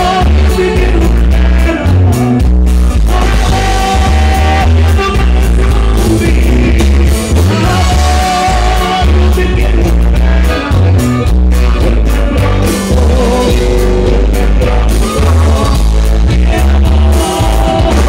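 Live norteño band playing a slow corrido for dancing, with a singer over a loud, steady bass.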